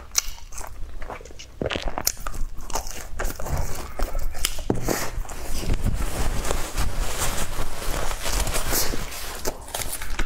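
Close-miked biting and chewing of crispy fried food: repeated crisp crunches and crackles as the pieces break between the teeth.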